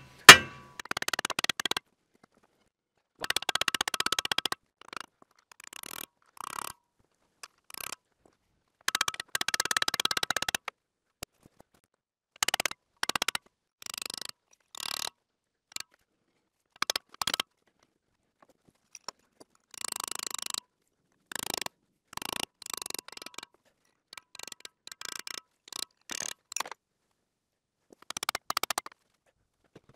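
A hammer blow on a semi-truck driveshaft yoke just after the start, then irregular short bursts of metal clinking and scraping as a U-joint bearing cap is driven out.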